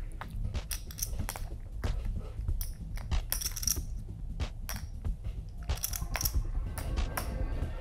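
Poker chips clicking against each other as a player shuffles and handles a stack of chips at the table, in irregular clusters of sharp clicks, over a low steady rumble.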